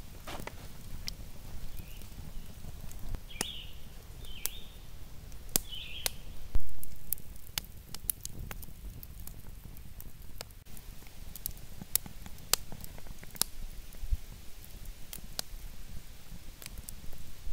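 Wood fire burning in an earthen pit kiln, crackling with sharp, irregular pops over a low rumble.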